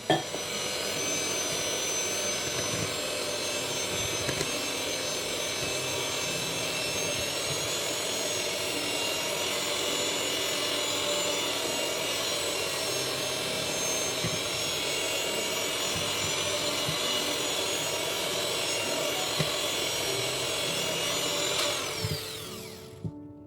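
Electric mixer running steadily, beating cream cheese, yogurt and whipping cream together. It starts abruptly and is switched off near the end, its pitch falling as the motor winds down.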